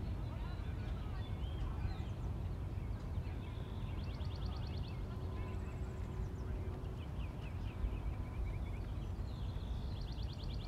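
Outdoor ambience: a steady low rumble with birds chirping over it, including a rapid trill about four seconds in and again near the end, and a run of falling chirps a little after the middle.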